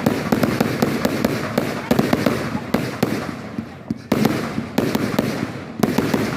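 Fireworks going off in rapid succession: a dense run of sharp bangs and pops that thins out briefly, then starts up loudly again about four seconds in.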